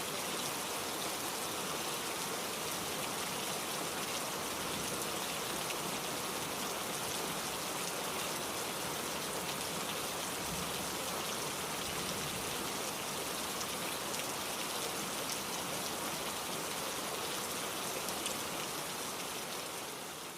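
Steady rain falling, with dense fine drop hits on a surface; it fades out near the end.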